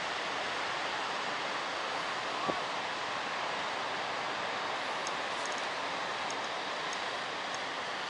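Big-wave ocean surf breaking and washing in a steady, even rush of noise, with a single sharp knock about two and a half seconds in.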